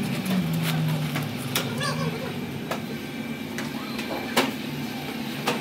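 Working bakery: a steady low hum with scattered sharp knocks and clatter of work, and faint voices in the background.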